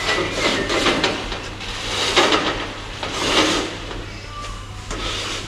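Several scraping, sliding noises as a fitting or line is worked along a sailboat's replacement boom, the loudest about two and three seconds in.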